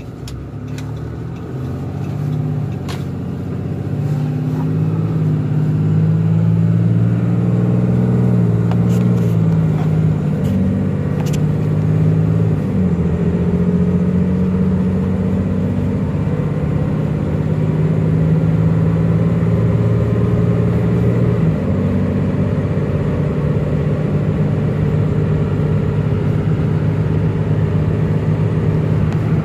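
Diesel engine of a 2011 Dodge Ram 5500 chassis-cab truck, heard from inside the cab as the truck accelerates to highway speed. The engine note grows louder over the first few seconds, then holds. It changes abruptly twice, near the middle and about two-thirds of the way through, as the automatic transmission shifts gear. A few light clicks come in the first half.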